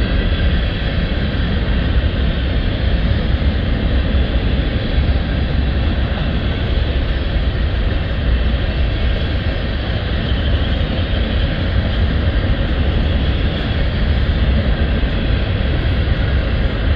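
Covered hopper cars of a long freight train rolling past: a steady, unbroken rumble of steel wheels on rail, heaviest in the low end.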